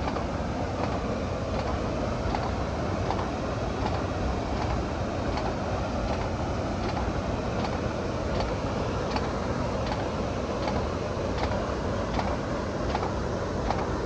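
Karute River waterfall roaring: the steady, unbroken rush of falling water.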